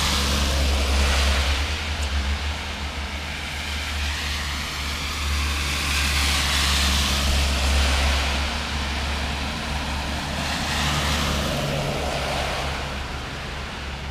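Road vehicles passing on a wet road: tyre hiss swells and fades about three times over a steady low engine rumble.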